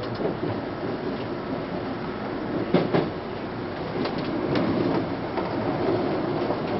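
Tokyu 8090-series electric train heard from inside, behind the cab: a steady rumble with a handful of sharp clicks, the loudest a little under three seconds in.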